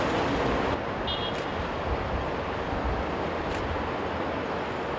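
Distant Boeing 747 jet engines, a steady rumbling roar mixed with wind on the microphone; the level drops slightly under a second in.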